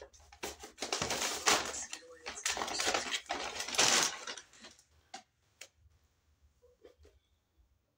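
Brown paper takeaway bag being handled and crumpled, a dense crackling rustle for about four seconds, followed by a few faint ticks.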